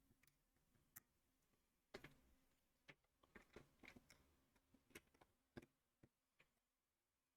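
Faint, scattered clicks of plastic LEGO bricks being handled and pressed into place, about a dozen at irregular intervals.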